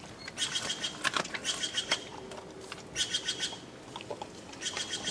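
Spotted hyena chewing through bone: short bursts of rapid crackling clicks, one every second or so.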